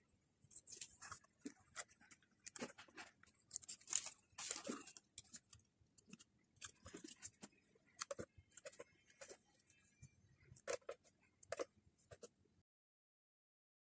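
Faint handling of paper photocards and card sheets: scattered light taps, clicks and short rustles, with a longer rustle about four to five seconds in. The sound cuts off near the end.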